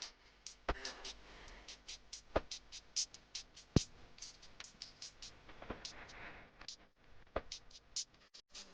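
A rapid, irregular run of sharp clicks or crunches, several a second.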